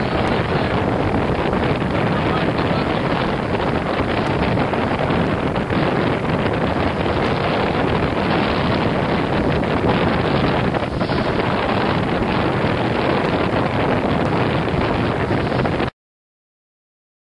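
Wind buffeting the microphone on a sailboat under way, with water rushing along the hull: a steady, dense rush that cuts off suddenly near the end.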